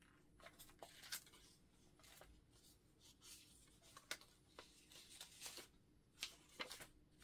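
Faint rustling and scattered light clicks of paper pieces being leafed through by hand in a plastic storage bin.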